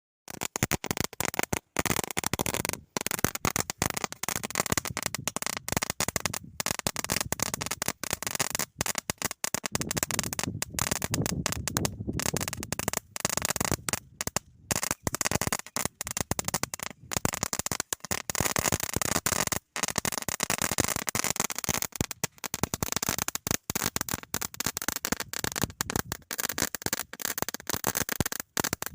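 A 1000-wala firecracker string going off, a dense run of rapid bangs that starts a moment in and keeps on without a break, apart from short drop-outs.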